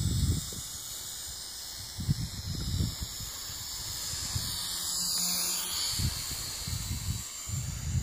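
Small quadcopter drone's propellers giving a steady high hiss, with irregular low gusts of wind buffeting the microphone.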